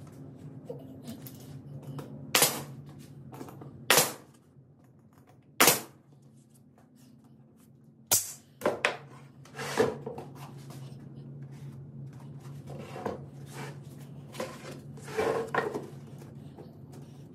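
A series of sharp knocks or bangs, a second or two apart, with smaller taps after them, over a steady low hum.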